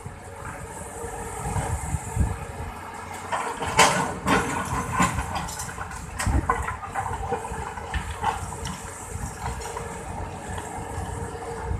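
Excavator's diesel engine running steadily, with a cluster of clanks and knocks about four seconds in and a few more a little later.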